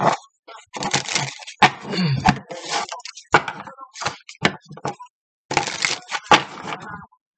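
A stack of cards being shuffled by hand: quick, irregular snaps and rustling, with a short break about five seconds in.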